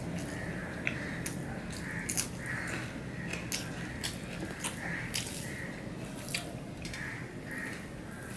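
Close-miked eating by hand: chewing with irregular wet clicks and smacks as rice mixed with fried snake gourd is mixed on a steel plate and eaten.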